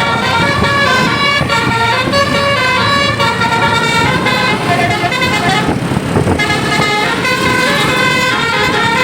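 Bus telolet basuri musical air horn playing a tune in stepped notes over road and engine noise, with a short break about six seconds in.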